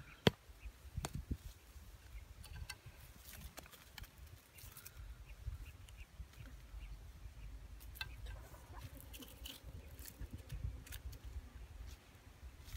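A hatchet tapping a small wooden stake into the ground, two sharp knocks about a second apart near the start, followed by faint clicks and rustling of twigs and cord being handled while a bird snare is set.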